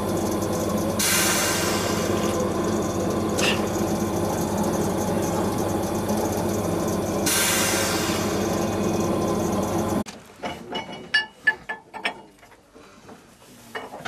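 A GÜR-İŞ shoe-repair machine running with a steady hum and hiss, with two louder hissing bursts about a second long. It stops abruptly about ten seconds in, giving way to light clicks and knocks of handling.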